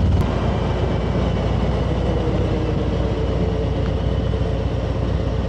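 Touring motorcycle engine running at road speed under wind rush. The strong, steady low engine note drops away a fraction of a second in, leaving a rougher engine sound, as when the throttle is eased.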